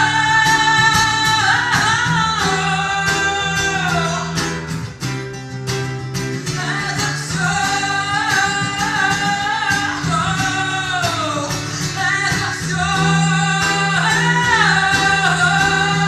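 A song sung with guitar accompaniment and a steady beat. The vocal line breaks off about four seconds in and comes back a couple of seconds later.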